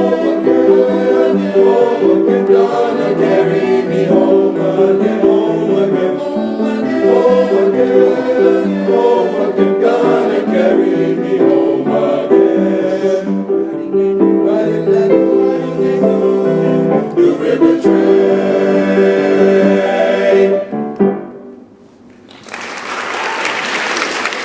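Young men's chorus singing in harmony with piano accompaniment, the piece ending about 21 seconds in; after a brief pause, audience applause starts.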